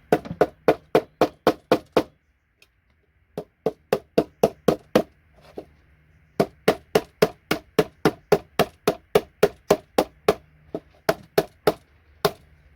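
Rapid hammer blows, about four a second, in several runs with short pauses, knocking a large block of RJ45 Ethernet connectors off a circuit board.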